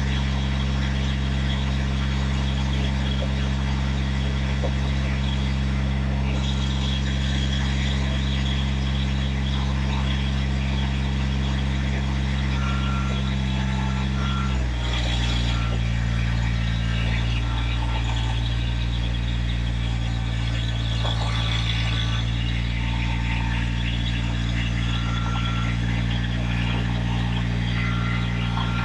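An engine idling steadily, its note changing slightly about halfway through and then holding steady again.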